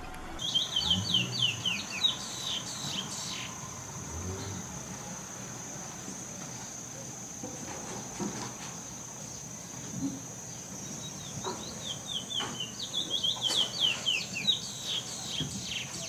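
Male curió (chestnut-bellied seed finch) singing: a quick run of descending whistled notes at the start, a few quieter notes in the middle, and a second long run of descending notes in the last five seconds. A faint steady high-pitched whine continues underneath.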